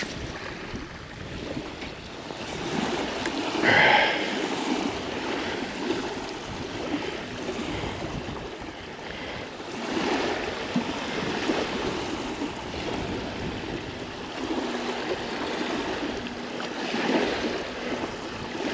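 Small waves lapping and washing over a pebble shoreline, rising and falling in uneven swells, with a brief louder rush about four seconds in.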